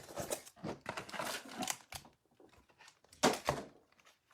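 Trading cards and their packaging being handled on a table: scattered rustles and light taps, with the loudest cluster of clicks and rustling a little over three seconds in.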